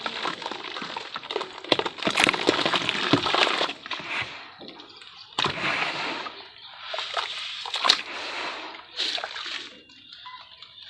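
Dry sand-and-cement shapes being dipped in water, with wet sloshing and crackling in bursts. The sound is loudest in the first few seconds, then comes in shorter bursts.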